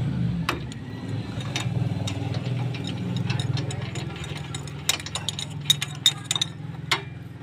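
Ratchet wrench clicking as a bolt on a small engine's cylinder head is turned, in short irregular clicks that come more thickly near the end, over a steady low hum.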